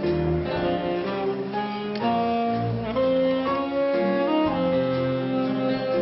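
Vintage dance band playing a very slow 1920s popular song, the instrumental verse, with saxophone on the melody over the band's accompaniment.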